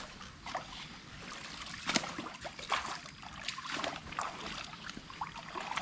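Water splashing and trickling, with irregular sharper splashes or knocks, the strongest about two seconds in.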